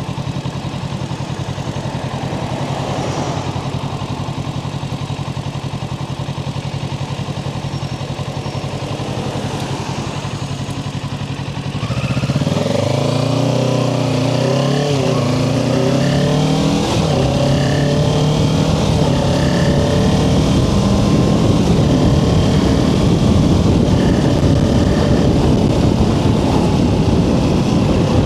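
Kawasaki Ninja 650's parallel-twin engine running steadily at low revs, then about twelve seconds in getting louder as the bike accelerates, its pitch climbing and dropping several times before rising on through the rest.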